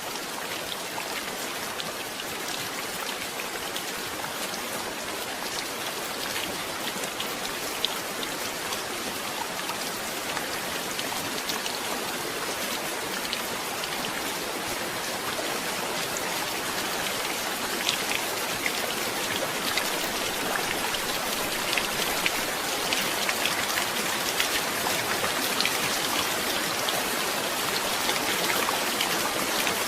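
Steady rain falling, a dense hiss flecked with many small drop impacts, growing gradually louder through the second half.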